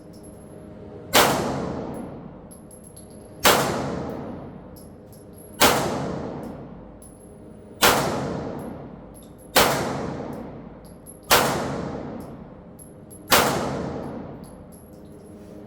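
Foxtrot Mike FM9 9mm AR pistol fired seven times at a slow, steady pace, about one shot every two seconds. Each shot rings out and trails off over a second or two.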